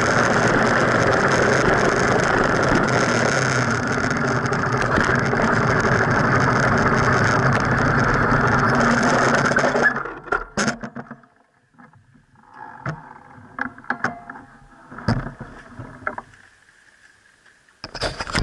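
Riding noise from a bicycle, picked up by a camera mounted on the front fork: steady tyre and wind noise with rattle, which drops off suddenly about ten seconds in. Then scattered clicks and knocks, with a louder burst near the end.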